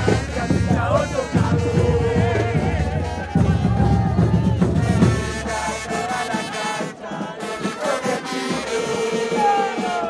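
Football supporters' band of bass drums and trumpets playing while the crowd in the stands sings a chant together. The drums stop about halfway through, leaving the crowd's singing and the horns.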